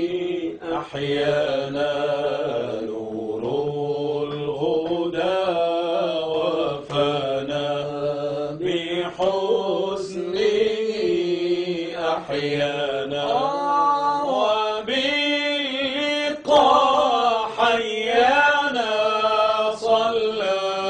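Arabic devotional nasheed: a voice chanting long melodic lines in praise of the Prophet, over a steady held low note.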